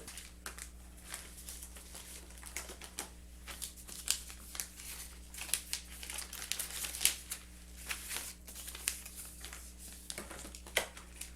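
Plastic crinkling and crackling in irregular handfuls, many small sharp crackles, as plastic bags or gloves are handled.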